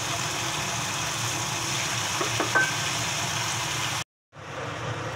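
Beef-wrapped enoki rolls frying in a little oil in a nonstick pan: a steady sizzle over a low hum, with a short clink of tongs on the pan about two and a half seconds in. The sound breaks off abruptly about four seconds in and gives way to a different steady hiss.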